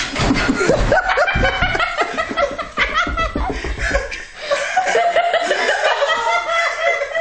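People laughing in short, repeated bursts, with a run of low thumps in the first two seconds.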